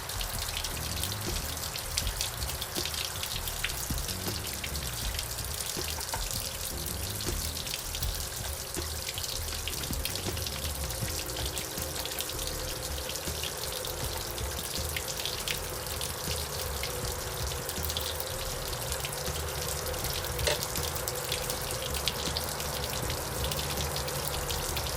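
Steady running, splashing water with small drips and patters, and a faint steady hum underneath.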